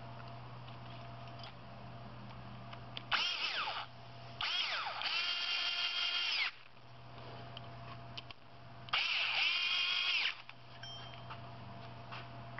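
Cordless screwdriver driving the screws that fasten the mounting bracket to an oil preheater cartridge: three short runs of motor whine, each rising in pitch as it spins up and dropping as it stops, the middle one about two seconds long.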